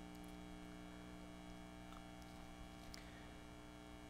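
Near silence: a faint, steady electrical mains hum with a few tiny faint ticks.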